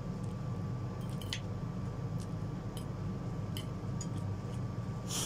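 Eating at a table: scattered light clicks of a metal spoon and fork against a plate of instant noodles, with soft chewing, over a steady low hum.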